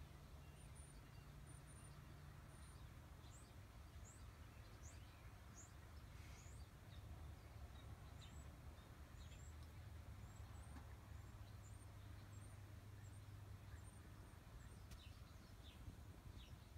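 Near silence: a faint steady low hum, with many faint, short, high chirps scattered throughout.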